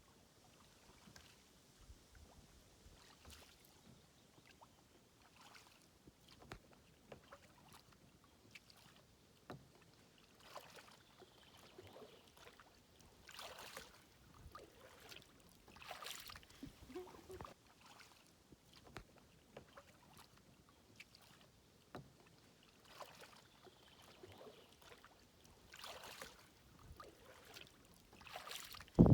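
Kayak paddle strokes in water: faint swishes and splashes of the blades dipping in, about one every two to three seconds, with small drips and clicks between.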